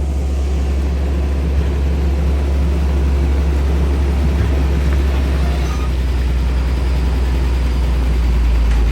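Heavy vehicle engine running, a steady deep rumble.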